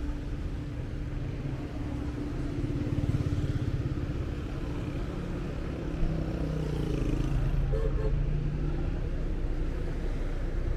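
Busy city street traffic: cars and motorcycles driving past at close range with a steady engine rumble, and a brief louder moment about six seconds in.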